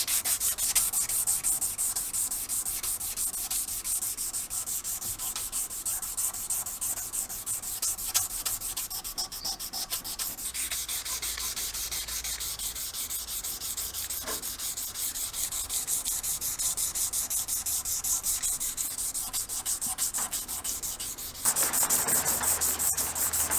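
Rapid back-and-forth sanding or scrubbing strokes on the rusted metal of a cement groove tool. The sound changes about ten seconds in and gets louder near the end.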